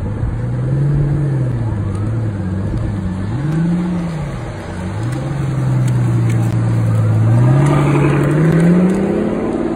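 Pagani Huayra's twin-turbo V12 pulling away at low speed: the engine note rises about a second in, swells up and back down around the middle, then climbs steadily near the end as the car accelerates.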